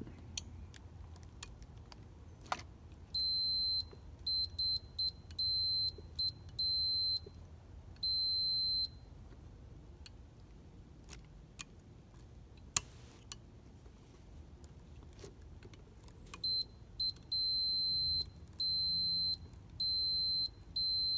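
Multimeter continuity beeper sounding as a probe sits on a voltage regulator's cleaned contact points: one steady high beep that comes on while the points make contact and stops when they break. It goes in irregular stretches, some brief and some a second or more, in two groups with a pause between. Light clicks of probe and points are scattered through it, with one sharp click near the middle.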